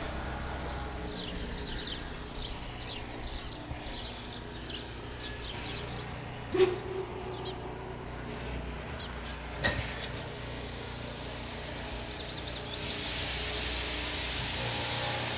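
Narrow-gauge steam locomotive standing with steam up, with birds chirping over it and two sharp knocks about six and a half and nine and a half seconds in. From about thirteen seconds a steady hiss of steam builds as steam blows from the cylinder drain cocks, ready for departure.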